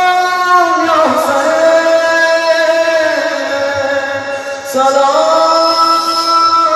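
A naoha, a Muharram lament, chanted by a single voice in long, drawn-out held notes. The pitch slides down about a second in and rises again about five seconds in.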